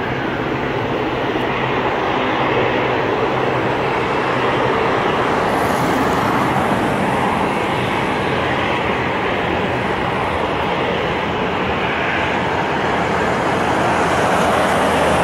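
Airbus A300 freighter's twin turbofan engines at takeoff thrust, a steady jet roar from the climbing airliner, growing a little louder near the end.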